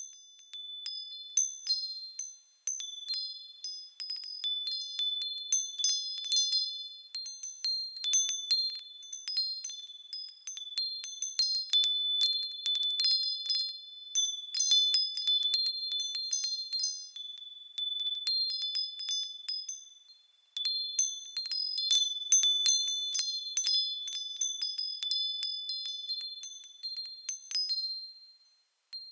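Wind chimes ringing, struck irregularly in clusters of high, overlapping tones that ring on and fade. The ringing dies away briefly three times, about three seconds in, about twenty seconds in and near the end, before the chimes are struck again.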